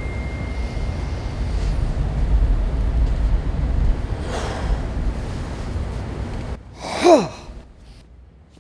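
Raw production sound with no effects added: a steady low rumble of background noise, then after an abrupt cut a person's short loud gasp that falls in pitch, about seven seconds in.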